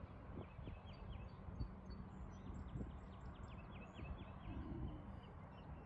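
Low wind rumble on the microphone, with small birds chirping rapidly in short runs in the background.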